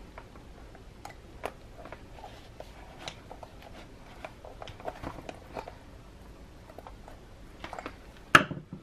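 A flathead screwdriver scraping and clicking against the glued-in metal back plate of a leather planner's ring mechanism as it is pried loose, in scattered small ticks with one sharp, louder click near the end.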